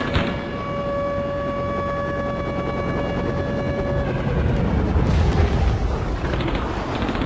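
A steady, even whining tone for about four seconds, then helicopter engine and rotor noise, low and rumbling, that swells louder.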